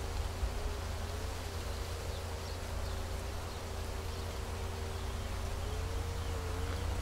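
An insect buzzing, its drone wavering slowly up and down in pitch, over a steady low rumble of open-air field ambience.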